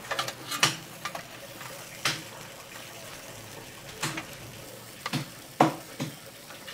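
Scattered light clicks and clinks of a metal spoon and a wire grill basket against a metal tray and bowl as sambal is spread over grilled prawns. A faint steady hiss runs underneath.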